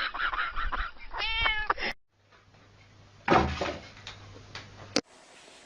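Domestic cat meowing, one drawn-out, wavering meow about a second in. After a sudden cut, a brief loud noisy rustle or thump over a low hum.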